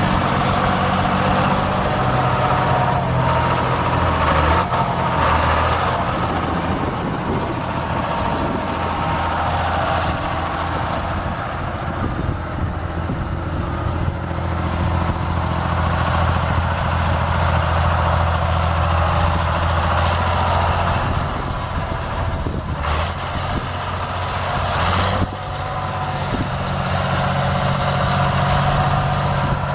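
Large John Deere tractor's diesel engine running steadily as the tractor drives and turns. Near the end come two short sharp knocks a couple of seconds apart.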